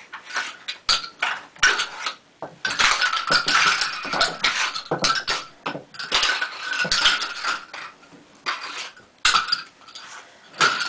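Plastic milk-bottle caps clattering as they are knocked off a windowsill and land on the floor: many small plastic clicks and rattles in quick, uneven clusters, thinning out for a moment late on.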